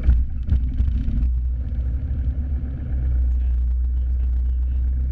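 Piper Archer II's 180-horsepower four-cylinder Lycoming engine just after start, heard from inside the cabin: a few uneven firing pulses in the first second or so, then settling into a steady idle.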